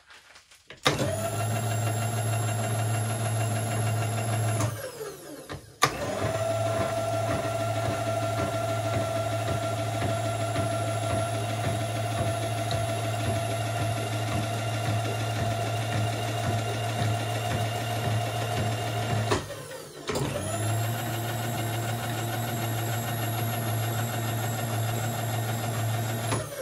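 Wen Ding X-axis power feed motor on a bench milling machine, driving the table: a steady electric motor whine with gear hum. It is switched on three times, and each run winds down with falling pitch when it stops.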